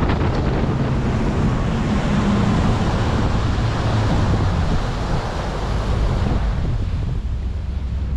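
Wind buffeting the microphone aboard a moving boat, over a low steady rumble from the boat and water. It eases a little near the end.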